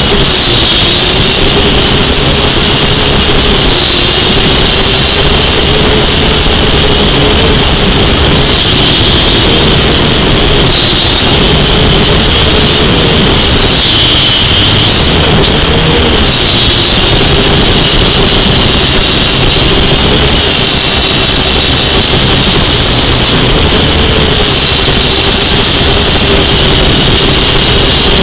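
Small, inexpensive quadcopter's electric motors and propellers whining loud and steady, heard up close from its own onboard camera. The pitch wavers up and down a few times, most around the middle, as the throttle changes.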